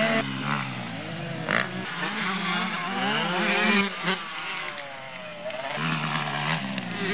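Motocross bike engines revving hard, pitch rising and falling repeatedly with throttle and gear changes as the bikes ride past.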